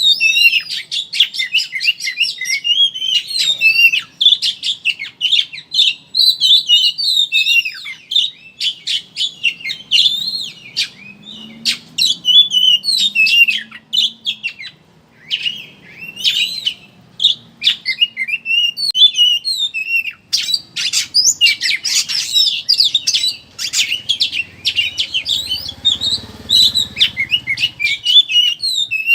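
Oriental magpie-robin (kacer) singing a fast, chattering twitter of varied high notes, with a brief break about halfway through. It is the rapid 'ngeriwik' style of song, used as a lure to set other magpie-robins singing.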